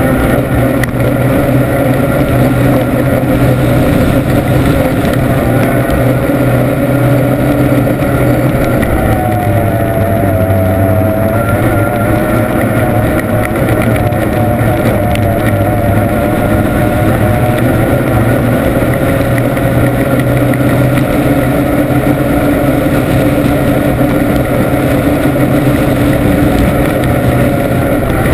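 Formula 1 tunnel-hull race boat's outboard engine running hard at racing speed, heard on board. The engine note holds steady, wavering slightly in pitch about ten seconds in.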